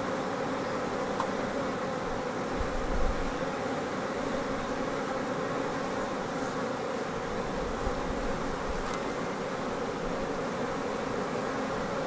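Steady buzz of a honey bee colony working the comb of a Flow Hive super, the hum of a strong colony building up for the spring nectar flow.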